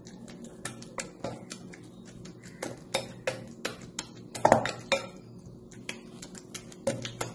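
A spoon stirring a wet semolina batter in a bowl, clinking and tapping against the bowl in quick irregular strokes, with one louder knock about four and a half seconds in.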